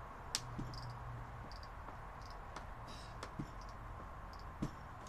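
Scattered sharp clicks and a few short high squeaks of hands handling a security camera and its wall mount overhead, the loudest click about a third of a second in, over a steady faint hum.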